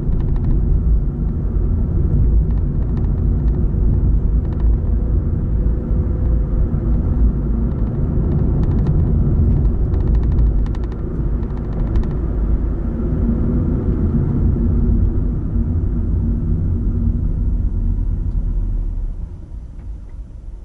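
Car road noise heard from inside the cabin: a steady low rumble of tyres and engine while driving, dying away near the end as the car slows to a stop.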